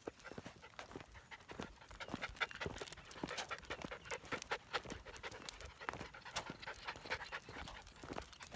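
Standard Poodle puppies panting as they trot on leash, over a rapid, irregular patter of footsteps and paws on the trail surface.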